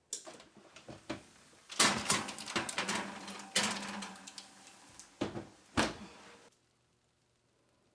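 Kitchen handling sounds during food preparation: a busy run of clicks, knocks and rustling, with two sharper knocks near the end, cutting off suddenly.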